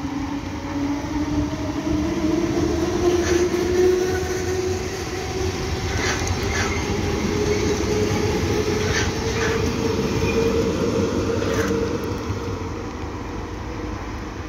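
Berlin S-Bahn electric train passing at speed, its traction whine rising in pitch under steady running noise. The wheels clack over rail joints about six times.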